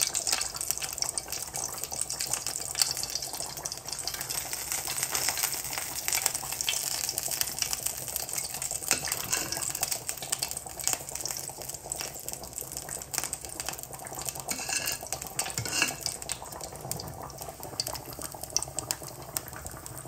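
Stovetop cooking: a steady crackle of many small pops and clicks from salmon simmering in a pot of broth beside a hot frying pan, with a few louder ticks.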